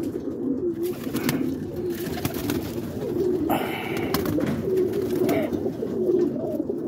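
Many Birmingham Roller pigeons cooing together in a loft, a steady overlapping warble.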